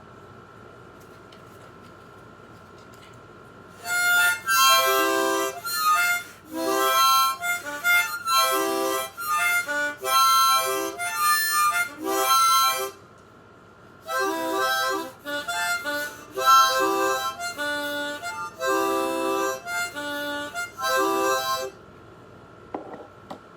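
Harmonica playing an instrumental intro of short chords and notes, in two phrases: the first starts about four seconds in, and after a brief pause the second runs until shortly before the end.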